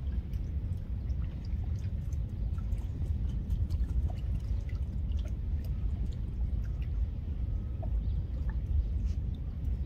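Outdoor ambience over open water: a steady, fluctuating low rumble with scattered faint ticks and drips of water.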